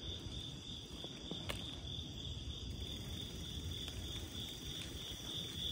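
Crickets chirping in a steady high trill, over the low rumble of bicycle tyres rolling on concrete, with one faint click about a second and a half in.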